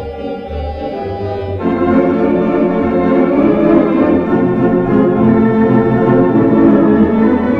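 Allen 4600 electronic theatre organ playing full chords over pedal bass notes; about one and a half seconds in, the registration fills out and the music grows louder.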